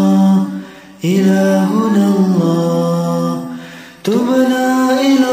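Voices chanting an Islamic dhikr a cappella in long, drawn-out held notes, with fresh phrases starting about a second in and again about four seconds in.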